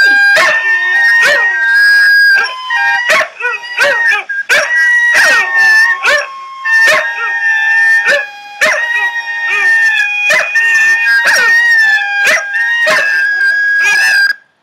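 Recorded dogs howling in long held notes over rapid barks and yips, played back from a dog video through a device's speaker. It cuts off suddenly near the end.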